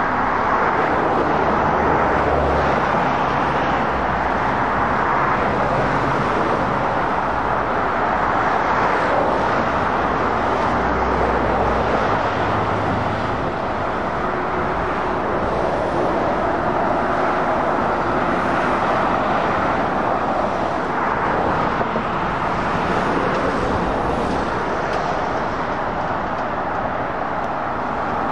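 Steady dual-carriageway traffic: a continuous tyre-and-road roar from passing cars and lorries. The low hum of heavy truck diesel engines swells in and out as the lorries go by.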